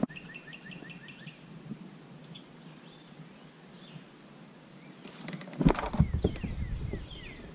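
Birds chirping: a quick trill of repeated chirps in the first second or so, then scattered short chirps. From about five seconds in, a cluster of knocks and thumps, louder than the birds.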